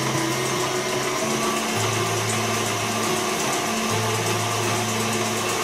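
Stand mixer's motor running steadily as it whisks brown sugar and melted butter in a steel bowl. Background music with low bass notes changing every couple of seconds plays under it.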